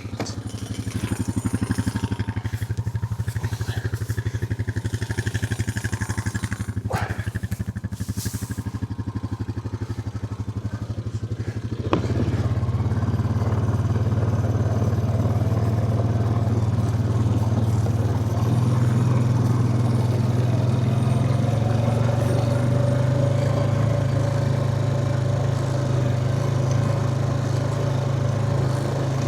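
A vehicle engine running steadily at a low pitch, with a couple of short rattles about seven and eight seconds in. It gets louder from about twelve seconds in and stays that way.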